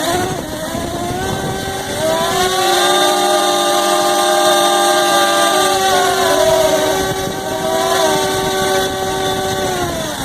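Cfly Faith 2 quadcopter's brushless motors and propellers running in a test of its newly repaired front arm: a whine of several pitches that starts abruptly, rises about two seconds in, wavers with throttle, then winds down near the end.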